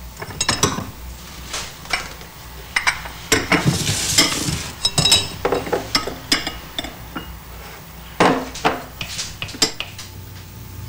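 Spoon and kitchen dishes clinking, knocking and scraping in a run of separate strokes, a few of them ringing briefly. This is the handling of a bowl of freshly mixed instant pudding.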